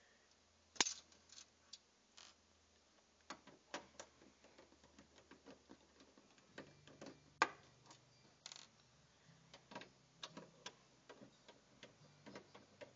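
Faint scattered clicks and taps of a screwdriver and screws on a desktop computer's metal case while the power supply's mounting screws are taken out. Two sharper clicks stand out, about a second in and about seven and a half seconds in, with a short scrape just after the second.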